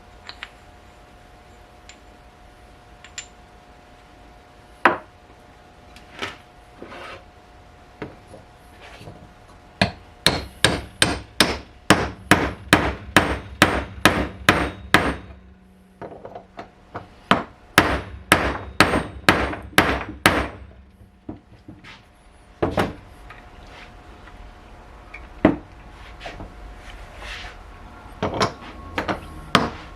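Hammer blows, a few single knocks at first, then runs of rapid strikes at about two to three a second, lasting several seconds each.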